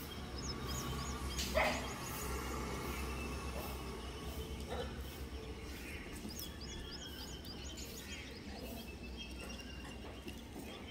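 Outdoor ambience: small birds chirping in short quick runs, over a steady low rumble, with one louder, brief call about one and a half seconds in.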